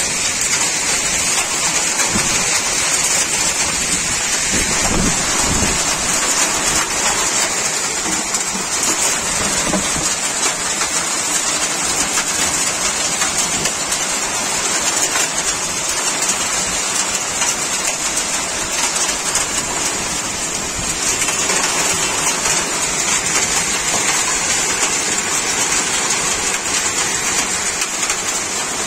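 Heavy rain falling steadily in a downpour, an even hiss.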